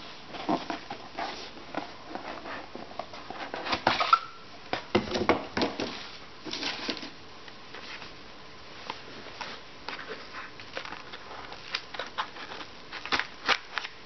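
Cardboard knife box being opened by hand and its insert tray lifted out: irregular rustling, scraping and light knocks of card and packaging, busiest from about four to seven seconds in, with a few sharp taps near the end.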